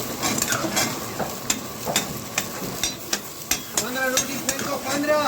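Chicken karahi sizzling in the pan as it is stirred, with frequent sharp clicks of the utensil against the pan.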